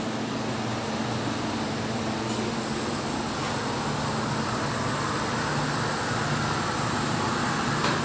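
Gas-fired Miura steam boiler running during start-up: a steady rushing noise over a low, even hum, slowly growing louder.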